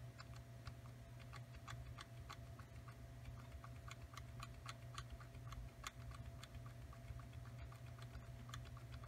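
Faint, irregular light clicks, a few each second, over a low steady hum.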